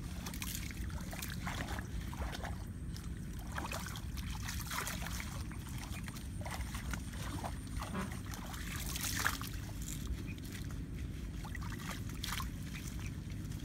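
Shallow water sloshing and trickling, and plant stems rustling and snapping in irregular crackles, as hands work through a clump of water plants, over a steady low rumble.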